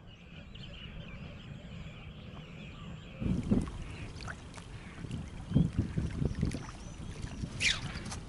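Water splashing and sloshing close to the microphone: irregular low thumps and surges that start a few seconds in and are busiest past the middle. A short, high whistle falls in pitch near the end.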